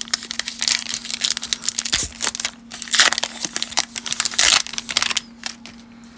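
The wrapper of a 2020 Topps Update baseball card pack crinkling and tearing as it is ripped open by hand, in an irregular run of crackles and rips.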